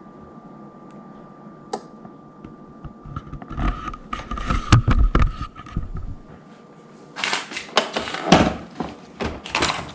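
FoodSaver vacuum sealer running with a steady whine while it pumps the air out of a plastic bag around a foam tray of herring, with crackling of the plastic midway. The motor stops about seven seconds in, and then comes a burst of plastic crinkling and rustling as the sealed bag is handled.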